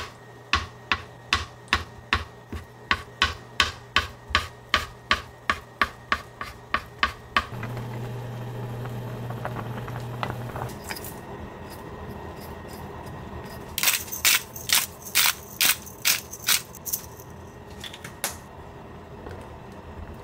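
A kitchen knife chopping on a cutting board in a steady rhythm of about three strokes a second. After about seven seconds it gives way to a low hum and a pot of rice-cake soup simmering and bubbling. From about halfway, a wooden spoon knocks and clinks against the pot several times.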